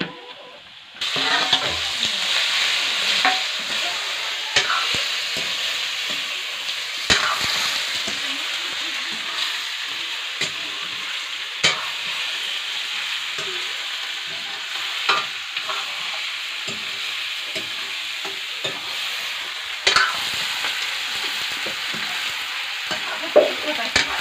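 Chicken frying and sizzling in a pan with a steady hiss, starting about a second in, while it is stirred with a metal spoon that knocks and scrapes against the pan every few seconds.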